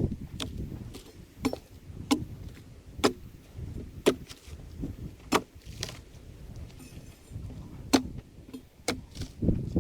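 Repeated sharp knocks, roughly one a second, of a tool striking an ironbark log as its thick furrowed bark is peeled off, over a low uneven rumble.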